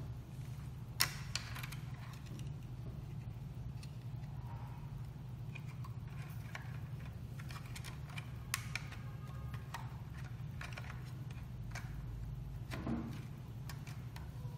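Scattered small clicks and taps of plastic and metal parts as a replacement cooling fan and its wires are fitted inside a mini projector's opened housing, the sharpest about a second in and near eight and a half seconds, over a steady low hum.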